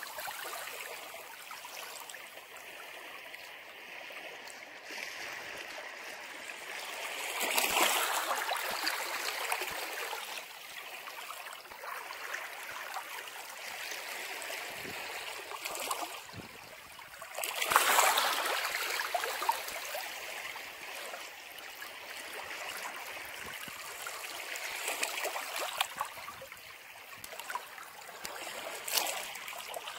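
Ocean waves breaking and washing ashore, a steady wash with two large surges about eight and eighteen seconds in and smaller ones near the end.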